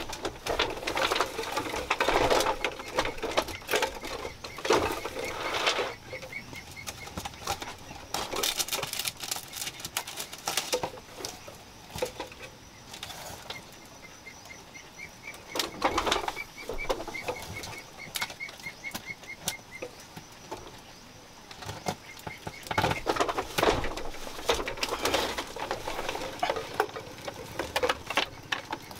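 Nylon fishing net rustling and crackling as it is handled, shaken and fish are worked out of its mesh, in bursts with a quieter stretch in the middle.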